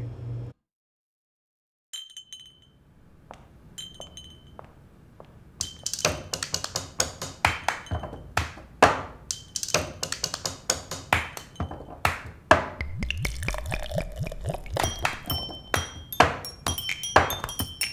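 After a second of silence, two ringing glass clinks sound a couple of seconds apart. About five seconds in, a rhythmic beat of dull thunks and taps starts, with glass pings of several pitches ringing over it, played as music made from beer glasses and table sounds.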